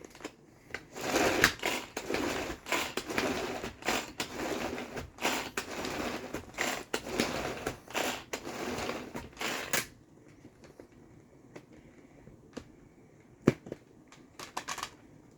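Tupperware pull-cord chopper worked in rapid repeated pulls, its blades grinding basil, garlic, Parmesan and olive oil into pesto, with a rattle of clicks on each stroke. It stops about ten seconds in, followed by a few light knocks.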